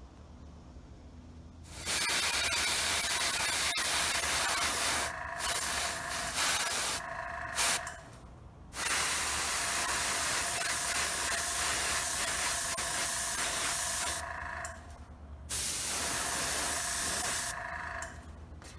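Airbrush spraying in long, hissing passes with several short breaks as the trigger is let off and pressed again. This is the angled white highlight coat sprayed from above over black primer (pre-shading).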